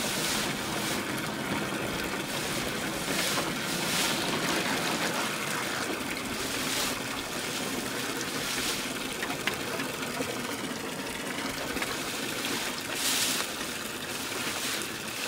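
Garden hose running steadily, its stream of water splashing into a plastic kiddie pool. A few brief rustles come now and then over it.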